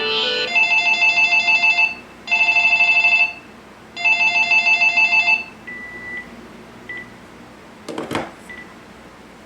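Cordless phone ringing electronically: a quick rising run of tones, then three trilling ring bursts, each about a second long. A few short single beeps and one sharp clunk follow near the end.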